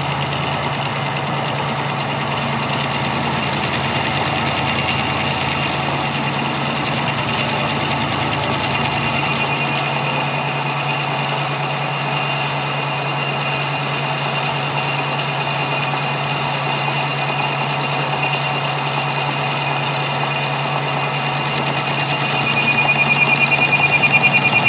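Metal lathe running with a steady hum while a lathe tool takes a turning cut along a steel gear shaft. A thin, high cutting whine grows louder near the end and flutters rapidly.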